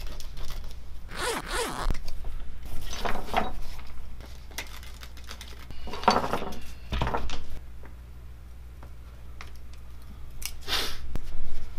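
Foam-backed upholstery fabric being pulled up from contact adhesive and cut away from a rubber console lid, in several short rasping strokes of about half a second to a second each.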